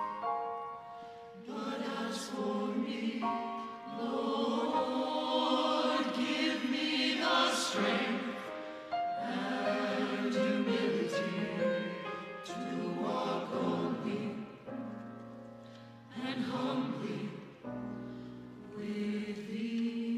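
Church choir singing a jazz-style anthem in phrases a few seconds long with short breaks between, accompanied by a small jazz band with soprano saxophone, piano and upright bass.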